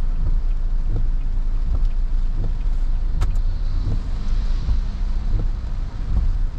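Car driving along a road, heard from a camera mounted outside the car: a steady low rumble of engine and tyres with a noise haze over it, and a single sharp click about three seconds in.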